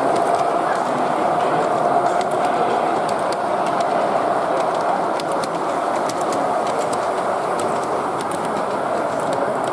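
G-scale model diesel locomotive running along its track: a steady rolling whir from its motor, gears and wheels on the rails, with faint scattered clicks.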